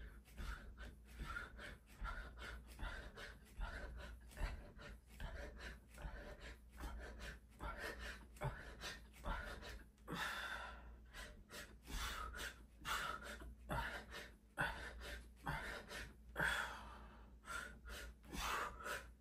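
A man breathing hard in short, forceful exhales, about one or two a second, from the effort of a set of push-ups.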